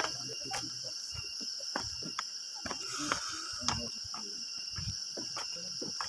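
Steady high-pitched insect drone, with irregular scuffs and taps of footsteps going down a trail.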